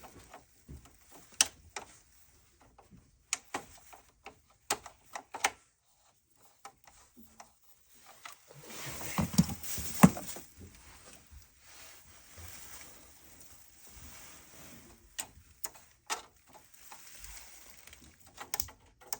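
Scattered sharp clicks and knocks of hands and tools working at a household circuit-breaker panel. About halfway through there is a few seconds of rustling and scraping, ending in the loudest click.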